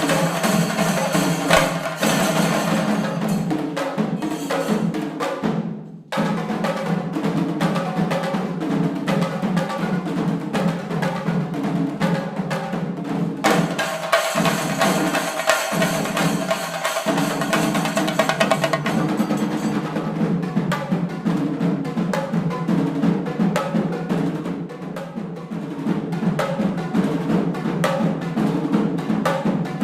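Shinkari melam: a group of chenda drums beaten with sticks in fast, dense rolls, with ilathalam cymbals ringing over them. The sound cuts out for a moment about six seconds in, then carries on.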